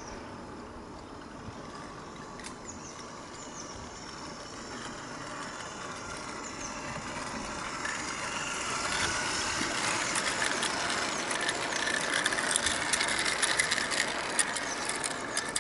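Small electric gearhead motor and crossed helical gears of a 16mm-scale model locomotive whirring as it runs along a garden-railway track towards and past the listener, growing steadily louder. From about ten seconds in, a quick run of sharp clicks comes from the wheels of the wooden wagons on the track as they pass close by.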